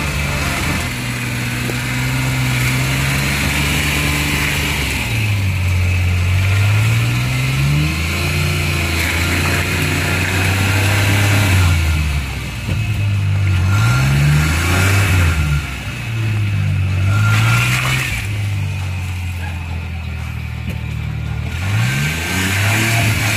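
Mini pickup truck's small engine revving up and down several times while it drives through deep mud.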